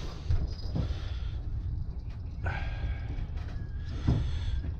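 Small rod bell on an ice-fishing dead-stick rod jingling lightly as it is handled and clipped onto the line, in short bits about halfway through and near the end, over a steady low rumble.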